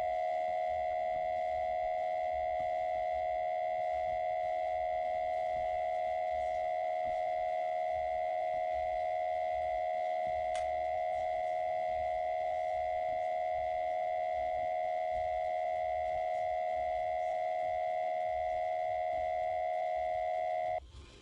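Emergency Alert System attention signal, pitched lower than normal: a steady, loud two-tone alarm held without a break. It warns that an emergency alert message follows, and here it cuts off suddenly near the end.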